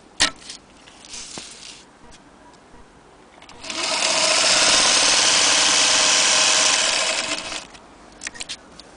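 Singer Featherweight 222K sewing machine running at speed on its electric motor for about four seconds, with a steady whirring hum that starts a few seconds in and winds down near the end. A single sharp click sounds first.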